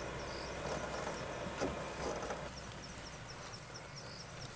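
Game-drive vehicle's engine idling low, the hum dropping away about two and a half seconds in, with a single knock about one and a half seconds in. Over it, steady high chirping repeats about three times a second.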